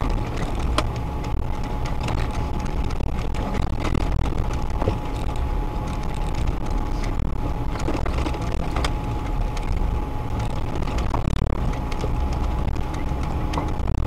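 Off-road 4x4's engine running and its cabin noise while driving over a rutted dirt track, heard from inside the vehicle, with scattered knocks and rattles from the bumps.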